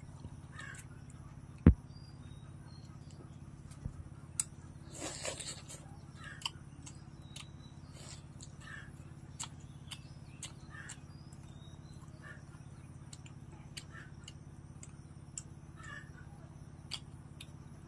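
Close-up eating sounds: chewing, lip smacks and small crunchy clicks as fried chicken is bitten and chewed, with one sharp loud knock about two seconds in.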